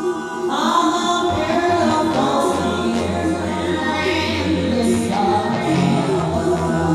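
A woman singing, her voice entering about half a second in with gliding phrases, over an instrumental band with a steady bass underneath.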